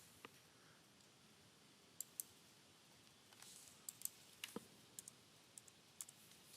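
Faint clicks of a computer mouse, about a dozen scattered irregularly, several in quick pairs, over near silence.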